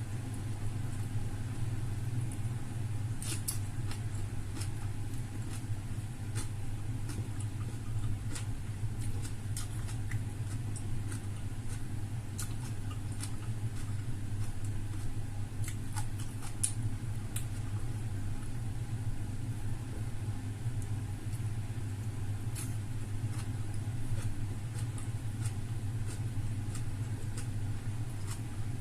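Steady low hum, with scattered small clicks and smacks of someone eating and chewing food.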